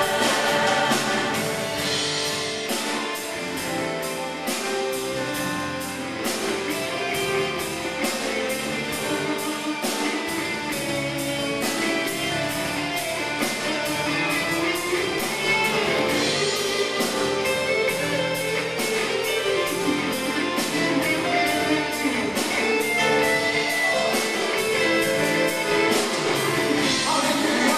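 Live gospel band music with a steady drum beat, led by keyboard and guitar, with little or no choir singing in this passage.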